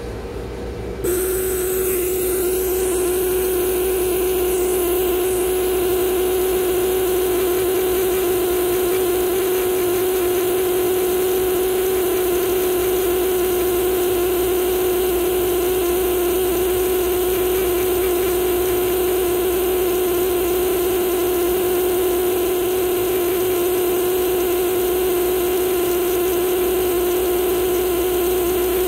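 Needle-tipped air scribe running with a steady, even buzz as its vibrating stylus chips the fine stone matrix away from fossil fish teeth; it starts up about a second in.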